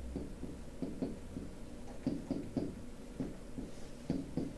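Marker pen writing on a whiteboard: a run of short, irregular strokes and taps as characters are drawn.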